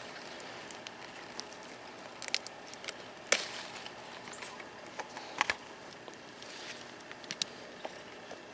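Hands working among pepper plants while picking peppers: scattered sharp clicks and rustles, the loudest a little over three seconds in, over a steady outdoor hiss.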